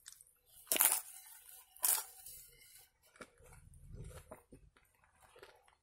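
Crisp, flaky pan-cooked flatbread being torn apart by hand: two short, sharp tears about a second apart, followed by faint chewing.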